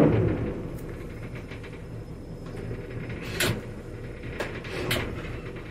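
Low steady machinery hum aboard a docked motor yacht, with a few sharp knocks, the loudest about three and a half and five seconds in.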